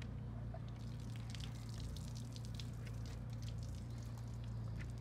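Water splashing and dripping as a soaked microfibre wash mitt is pulled from a bucket of soapy water and wiped on a car door, many small drips and splashes in quick succession from about a second in. A steady low hum runs underneath.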